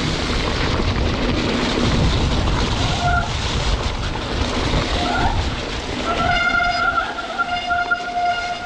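Mountain bike riding a wet, muddy trail in a storm, with a steady rush of tyres, rain and wind. The wet disc brakes squeal in a steady horn-like tone, briefly at about three and five seconds in, then held for the last two and a half seconds.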